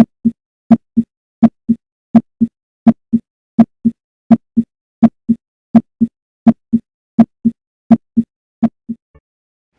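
Heart sounds at the mitral area (fifth intercostal space), as heard through a stethoscope: a steady lub-dub, the first and second heart sounds in pairs, at about 80 beats a minute. They fade out near the end.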